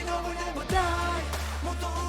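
K-pop song playing: singing over a steady bass and beat.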